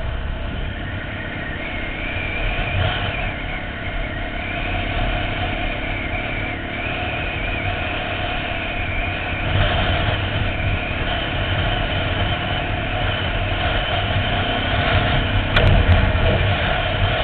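Dirt bike engine running as the bike is ridden, its pitch wavering up and down with the throttle.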